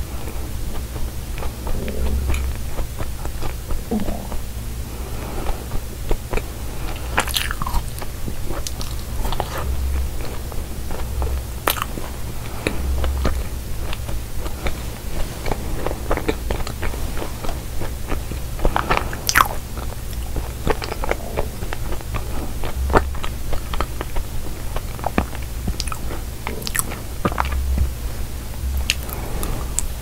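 Bites and chewing of a cookie pie: crisp crunches of the cookie crust breaking between the teeth, and softer moist chewing of the filling. The crunches come irregularly all the way through.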